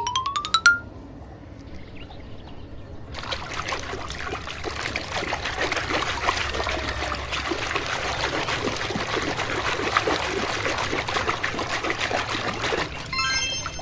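Water pouring and trickling steadily onto a muddy toy being rinsed, starting about three seconds in and lasting about ten seconds. A short rising whistle-like effect sounds just at the start.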